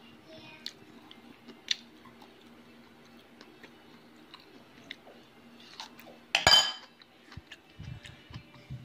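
Someone chewing a meal of rice and dried fish, with small clicks of tableware, and a loud clatter about six and a half seconds in as a metal spoon is set down in a ceramic bowl.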